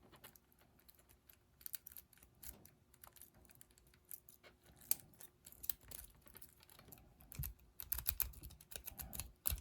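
Lock picks working in the keyway of a small Regal lock: scattered light metallic clicks and scrapes from the pick and tension wrench, growing busier in the last two seconds, with a few low handling bumps.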